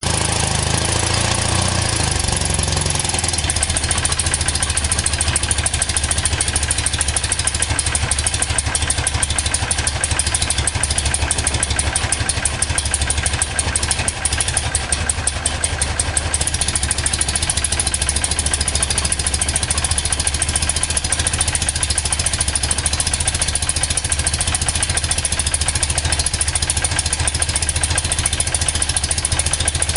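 BMW R100GS air-cooled flat-twin boxer engine running at idle, freshly overhauled and running while its ignition timing is set. Its speed shifts in the first few seconds, then it settles into a steady idle.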